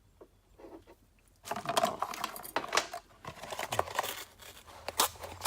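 Rustling with light clicks and knocks as parts and packaging are handled on a workbench, starting about a second and a half in after a near-silent moment.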